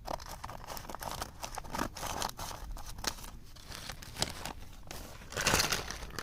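Packaging crinkling and rustling as it is handled, a string of small crackles with a louder rustle near the end.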